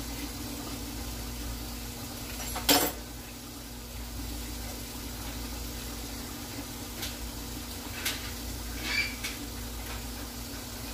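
Kitchen handling sounds at a counter: one sharp click about three seconds in, then a few light knocks and ticks later, over a steady low hum.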